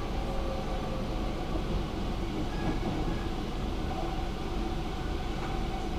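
Stockholm metro train running, heard from inside the carriage: a steady rumble with a faint whine over it.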